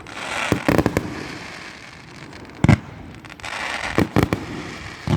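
Fireworks going off: several sharp bangs, the loudest about two and a half seconds in and a close pair near four seconds, with a crackling hiss between them.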